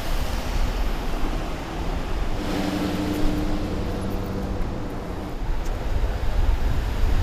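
Wind rumbling on the microphone over outdoor noise. From about two and a half to five seconds in there is also a steady held tone.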